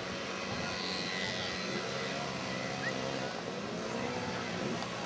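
Several 50cc two-stroke single-speed racing mopeds buzzing around a dirt track together, their overlapping engine notes rising and falling as they accelerate and ease off.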